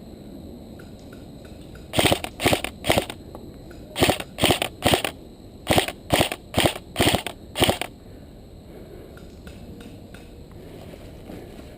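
Footsteps crunching on dry ground at a walking pace, about eleven steps in three short runs with brief pauses between them.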